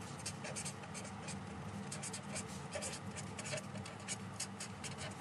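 Felt-tip marker scratching across paper in a quick run of short strokes as a line of handwriting is written.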